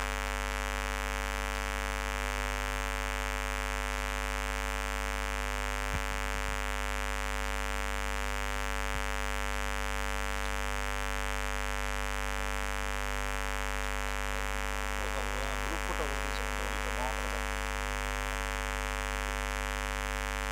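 Steady electrical mains hum and buzz from the stage sound system: a low drone with a dense stack of overtones that holds unchanged. Faint voices come through briefly about three-quarters of the way in.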